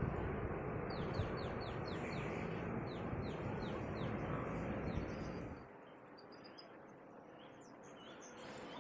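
A bird calling a quick run of about a dozen short, high, falling chirps that slow toward the end, over a steady rushing noise. The rushing drops away sharply about five and a half seconds in, leaving only faint chirps.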